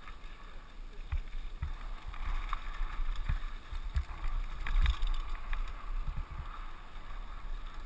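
Wind buffeting an action camera's microphone as a mountain bike rides fast down a dirt downhill trail, with steady tyre and rushing noise. Several dull thumps come through as the bike hits bumps.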